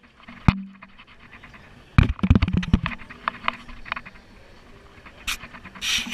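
Knocks and rubbing of a GoPro housing worn on the body as the wearer flips, with a sharp knock about half a second in and a burst of knocks about two seconds in, then lighter ticks.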